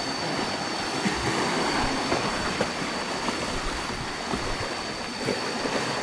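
Cicadas droning on one steady high pitch, over a constant rushing noise with scattered light crunches of footsteps on rough ground.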